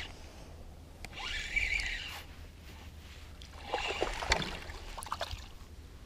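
Water splashing as a small hooked largemouth bass thrashes at the surface while it is reeled in. There is a burst of sound about a second in and more splashes around four seconds in.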